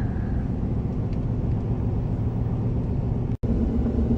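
Steady road and engine rumble heard from inside a moving car. It drops out for an instant a little over three seconds in, then resumes with a steady hum added.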